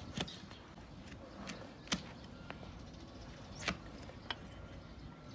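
Flat hoof-paring blade scraping and cutting at the sole of a donkey's diseased hoof, making four or five short sharp scrapes spaced a second or so apart over a quiet background.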